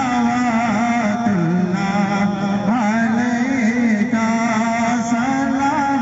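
A solo voice singing a devotional naat through a PA loudspeaker, in long held notes with melodic ornaments and bends.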